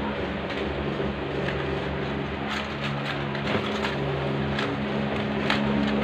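Scattered crinkling and rustling of paper flowers and their wrapping being handled and gathered into a bouquet, over a steady low hum.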